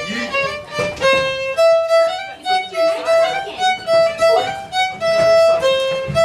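Background music: a quick melody of short notes.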